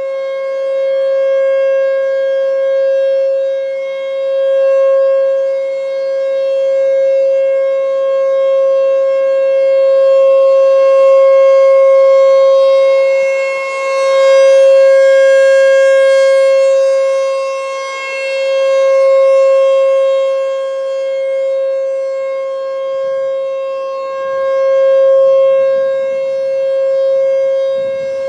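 American Signal T-128 electromechanical outdoor warning siren sounding one steady, unwavering tone during a siren test. The loudness swells and fades over several seconds as the rotating siren head turns toward and away, peaking about halfway through.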